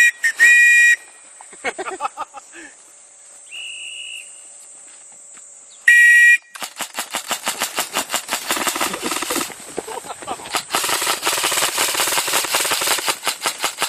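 A short high signal tone sounds twice, near the start and about six seconds in, then airsoft guns open fire in quick strings of sharp shots that grow denser through the last few seconds.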